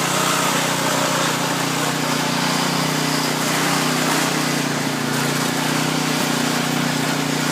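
Lawn tractor engine running steadily under heavy load while towing a car uphill, with a continuous hiss of noise over the engine drone.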